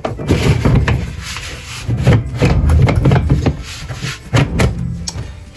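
Irregular clicks, knocks and scraping as the metal lever-lock ring clamp on a plastic 50-gallon drum lid is worked loose.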